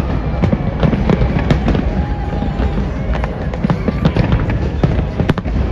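Big aerial fireworks display going off: many sharp bangs and crackles in quick succession over a continuous deep rumble.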